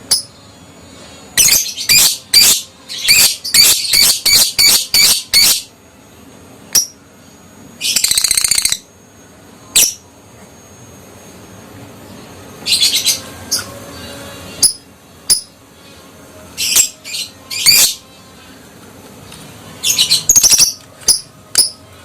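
Lovebird giving shrill, high-pitched calls in quick clustered bursts, with a short rapid chattering trill about eight seconds in.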